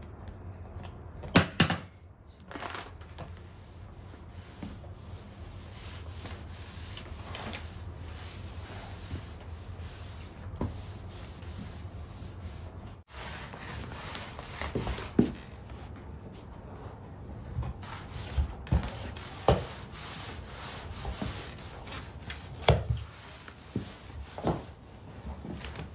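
Flat floor mop with a disposable cleaning sheet sliding over a wood-look laminate floor in steady rubbing strokes, with scattered light knocks through the second half. A few sharp clicks about a second and a half in as the sheet is pressed into the mop head.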